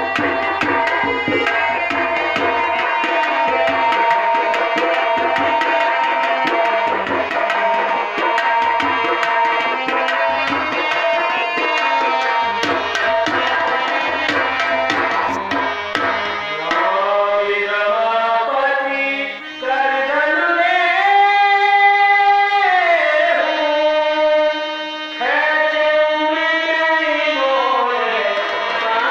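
Tabla-accompanied stage music played loud through a PA. About halfway through, a voice comes in singing long, held notes that slide up and down over the accompaniment.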